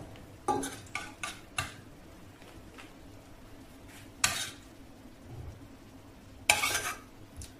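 A metal spoon clinks and scrapes in a small stainless steel saucepan as cooked prunes are scooped out. There are a few quick clinks in the first couple of seconds, then two longer, louder scrapes, about four seconds and about six and a half seconds in.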